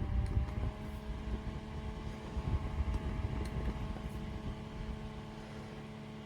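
Small battery-powered camping fan running: a steady motor hum with a few held tones over a low rumble of moving air.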